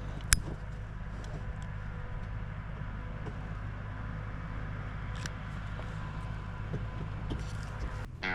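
Engine running steadily with a low, even hum, and a single sharp click about a third of a second in.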